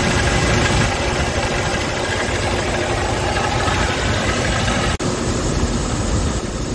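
Scania S tractor unit's diesel engine idling steadily. A momentary break about five seconds in, then the same steady running.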